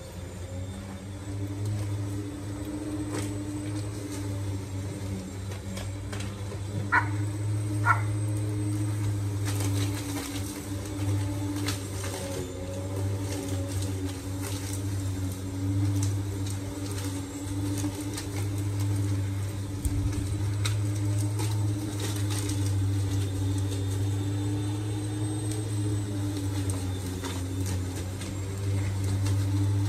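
Corded electric lawn mower running with a steady motor hum whose pitch wavers slightly as it cuts grass. Two short high chirps come about seven and eight seconds in.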